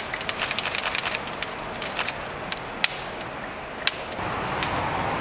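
Oysters in the shell grilling over charcoal, crackling and spitting with many sharp, irregular pops. About four seconds in, the pops thin out and a steadier hiss takes over.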